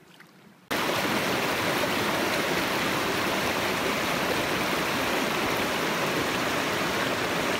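Rushing mountain stream running over rocks in a shallow riffle: a steady, loud rush of water that starts suddenly just under a second in.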